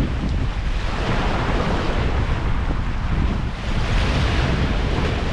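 Strong wind buffeting the microphone: a loud, rumbling noise that rises and falls with the gusts.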